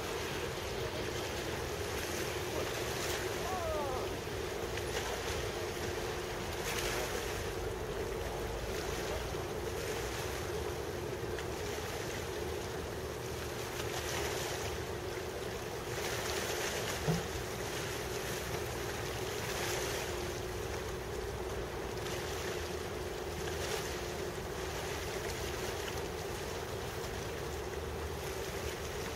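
Harbour ambience: wind gusting over the microphone and water washing, over a steady drone of ship machinery. A single short knock comes a little past the middle.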